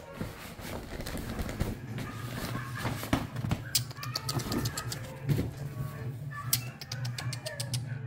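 Domestic cat meowing a few times, with a quick run of sharp ticks near the end.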